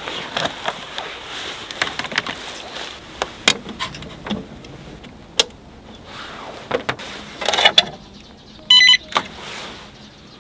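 Scattered clicks, knocks and rustles of things being handled, over a faint steady low hum. A short electronic beep sounds about nine seconds in.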